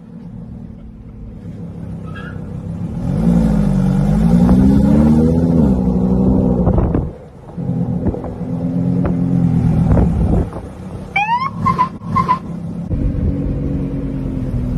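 Car engine running under way, heard from inside the car, revving up and easing off with its pitch rising and falling, then holding steadier. About eleven seconds in comes a brief rising electronic tone, a police siren chirp.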